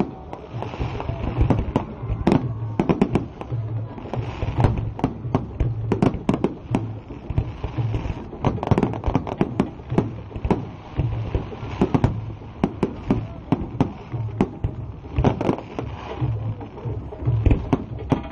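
Fireworks display: a rapid, irregular barrage of bangs and crackles, several a second, with no pause.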